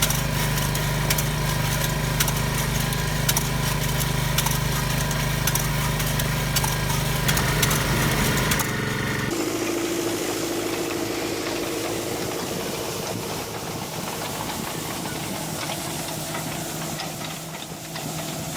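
Farm machinery engines running: a steady engine hum with many sharp ticks, then about nine seconds in a change to a different, quieter steady machine sound.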